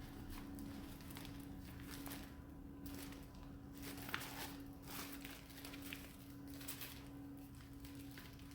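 Faint handling noises, a few light clicks and short rustles, over a steady low hum.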